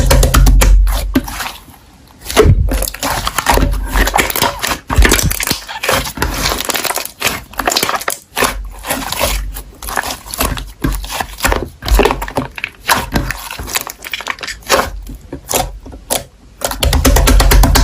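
Slime being squished and pressed by hand, giving a dense, irregular run of sticky crackling pops and clicks.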